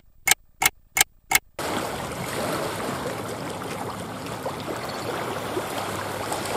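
A clock-ticking sound effect, five quick ticks about three a second over silence. From about a second and a half in, steady wind and choppy lake water.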